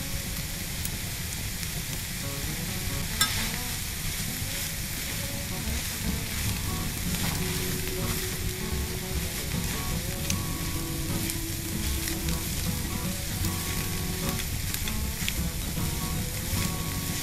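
Grated raw potato with onion and carrot frying in oil in a pan over a gas flame, sizzling steadily while a silicone spatula stirs and scrapes through it. A sharp knock sounds about three seconds in.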